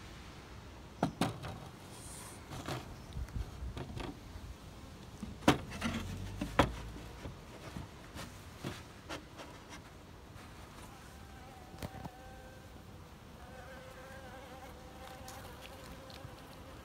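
Wooden knocks and clunks as a glass-panelled cover frame is set onto the wooden hive box, loudest about a third of the way in. Honeybees buzzing around the hive, with a steady pitched hum that comes up from about two-thirds through.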